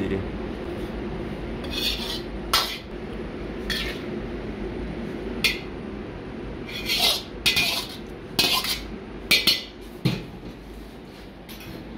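Steel ladle and tongs clinking against a wok and ceramic soup bowls as noodle soup is served out, a series of sharp clinks that come thicker in the second half, with a duller thump near the end. A steady low hum runs underneath.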